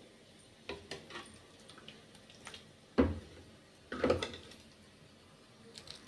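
Steel ladle serving dal into a bowl: a few light clinks, then two louder knocks of the ladle with the pour, about three and four seconds in.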